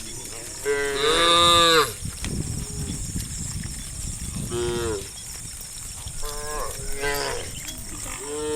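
Cattle mooing: about five drawn-out moos from the herd, the loudest and longest about a second in, another starting near the end. A steady high hiss runs underneath.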